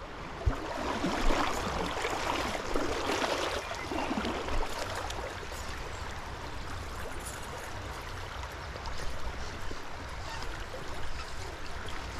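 Stream water flowing over riffles, a steady rush that is somewhat louder in the first few seconds.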